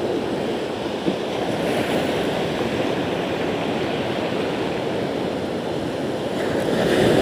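Sea surf breaking and washing up a pebble shore: a steady rush of water that swells louder near the end as a wave comes in.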